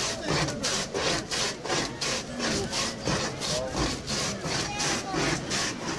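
A block of ice pushed back and forth by hand over the blade of a wooden ice shaver, scraping in quick, even strokes, a few a second, as it shaves ice.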